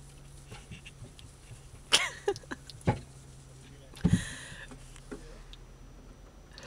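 Squeegees and scrub brushes working on a soapy car windshield, heard from inside the car: a few sharp knocks and squeaks on the glass about two to three seconds in, then a thump and a swishing wipe just after four seconds.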